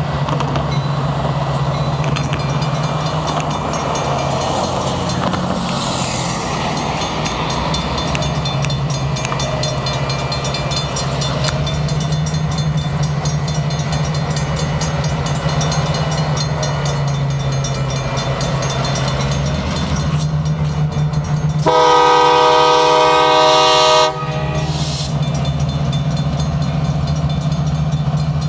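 Mechanical railroad crossing bells ringing rapidly and steadily over the low rumble of approaching diesel locomotives. About 22 seconds in, the lead locomotive's air horn sounds one chord-like blast of about two and a half seconds, the loudest sound.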